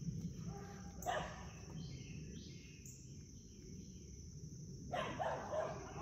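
A dog barks once about a second in, then several more times near the end.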